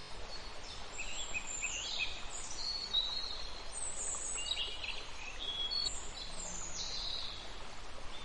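Several songbirds chirping and whistling, in many short overlapping calls, over a steady background hiss.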